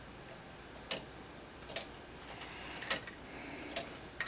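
3D-printed PLA grasshopper-escapement pendulum clock ticking, about one sharp tick a second, its escapement just set running.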